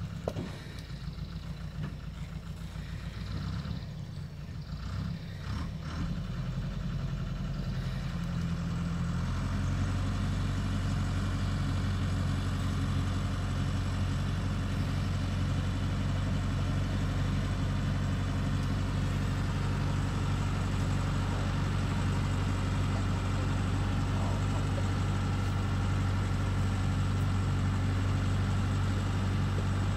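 Truck engine running, quieter and uneven at first, then settling into a louder steady drone about nine seconds in.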